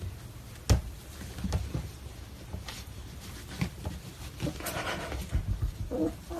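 Golden retriever puppies moving and settling on a towel: soft rustling and a few scattered thumps, the loudest a little under a second in.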